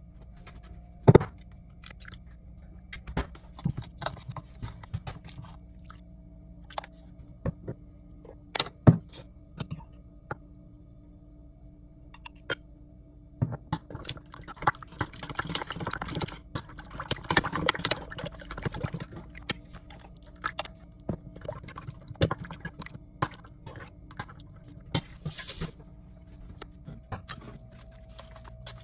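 Kitchen prep handling sounds: sharp knocks and clicks of eggs being cracked into a ceramic bowl and jars and utensils set down and picked up, with a busier stretch of handling noise in the middle, over a steady low hum.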